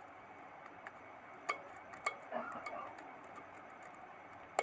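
Metal tester tip scraping and tapping against the aluminium coil winding of a cut-open refrigerator compressor: a few sharp clicks with a short stretch of faint scratching.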